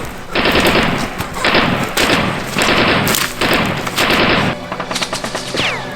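Loud bursts of rapid automatic gunfire, about seven bursts of roughly half a second each. In the last second and a half the firing stops and music begins.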